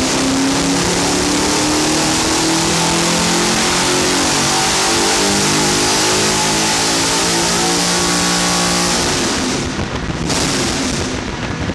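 BMW S62B50 4.9-litre V8 at full throttle on a hub dyno, its note climbing steadily through the revs in a power run. About nine seconds in the throttle closes and it drops back to a rougher, uneven sound as the revs fall.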